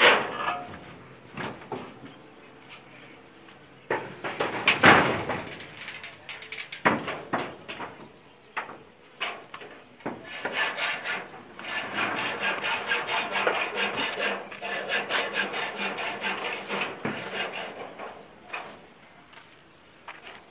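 Knocks and bangs on the metal roof and its steel frame, loudest about four to five seconds in, followed by a long stretch of rapid clattering.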